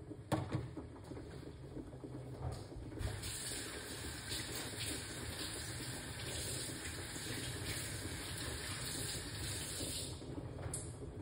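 Pot of water boiling on a stovetop with Jamaican boiled dumplings cooking in it: a steady hiss and bubble of the water that grows brighter about three seconds in and eases near the end. A light knock just after the start.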